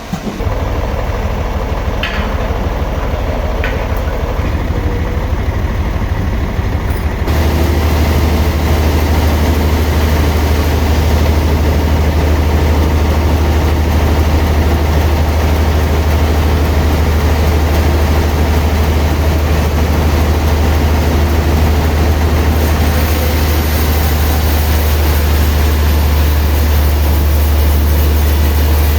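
Sawmill machinery running with a steady low engine drone under a constant mechanical noise. About seven seconds in, it steps up louder and fuller and stays there.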